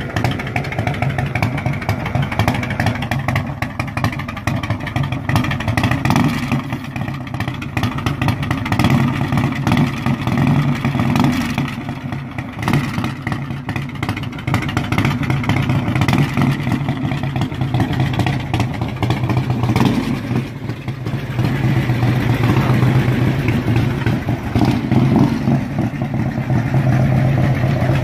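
1997 Harley-Davidson Heritage Softail Classic's Evolution V-twin running through long fishtail exhaust pipes, the throttle opened now and then, louder in the last few seconds.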